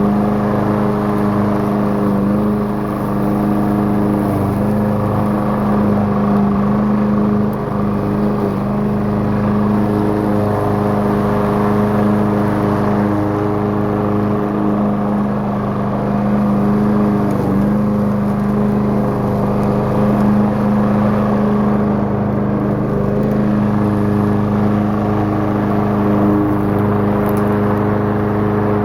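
Troy-Bilt walk-behind lawnmower's Briggs & Stratton engine running steadily and loudly while cutting through a clump of tall, thick, dry grass.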